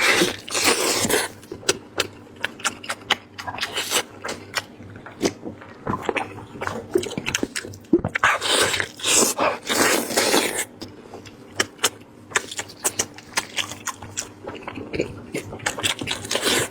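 Close-miked eating of braised lamb head meat: a steady run of wet mouth clicks and smacks while chewing, with two longer noisy stretches, near the start and about halfway through.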